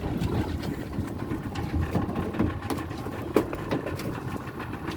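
A boat's motor running steadily, with a few scattered knocks.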